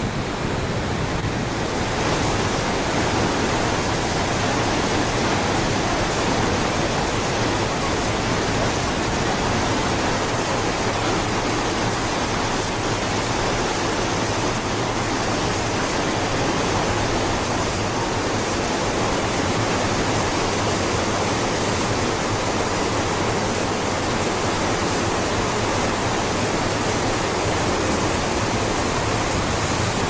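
Steady, loud rush of the huge volume of water pouring over Niagara Falls, an even wash of noise with no breaks.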